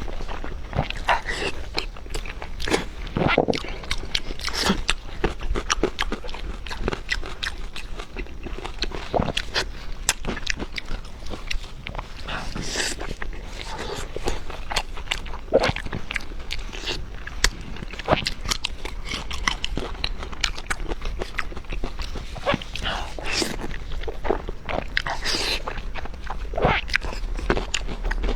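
A person eating close to the microphone: chewing and biting, heard as many short, irregular clicks and crunches.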